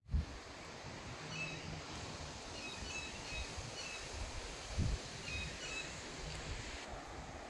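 Outdoor yard ambience: a steady wind-like hiss with a few faint, short high chirps, and a soft low thump about five seconds in.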